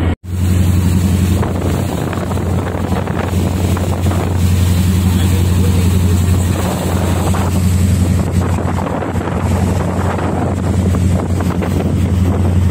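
Bumboat ferry's diesel engine running with a steady low hum under the rush of its wake and wind on the microphone, while the boat is under way. The sound cuts out for a moment just after the start.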